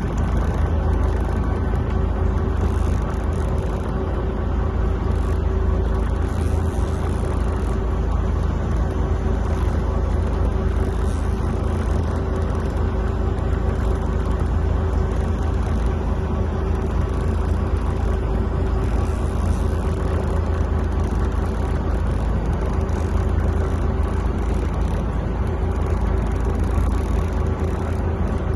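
Fishing boat's engine running steadily, a constant low rumble with a faint steady hum over it.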